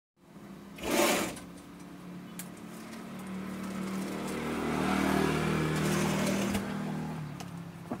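Small motorcycle engine running, growing louder to a peak about five seconds in and fading near the end, after a short loud noise about a second in.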